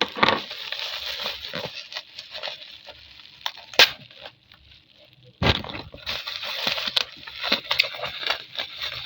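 Bubble-wrap packaging being unwrapped and handled, crinkling and crackling in two long stretches, with a single sharp snap about four seconds in.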